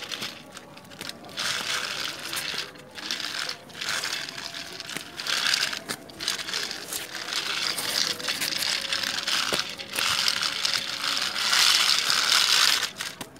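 Small plastic toy train rattling and grinding along rough concrete, in repeated bursts broken by short pauses, loudest near the end.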